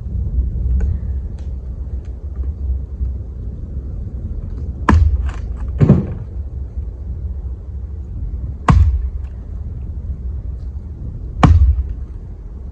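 Wind buffeting the microphone in a steady low rumble, broken by four sharp, loud knocks spaced one to three seconds apart, with a few lighter clicks between the first two.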